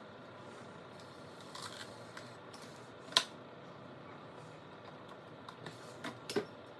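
Scattered small clicks and knocks of hands working a plastic syringe against a fridge's water-dispenser tube while hot water is squirted in to melt an ice clog. There is one sharp click about three seconds in and a few lighter ones near the end, over a faint steady hiss.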